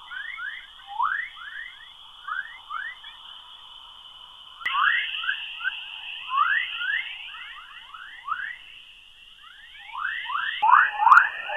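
Magnetospheric chorus waves picked up by space probes and played as sound: a dense stream of short, quick rising chirps over a steady high hiss-tone, like a crowd of twittering birds.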